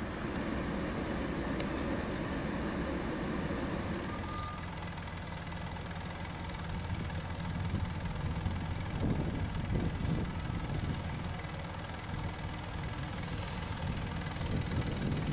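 A car engine idling steadily, a low even hum, with a few rougher low rumbles about nine to ten seconds in.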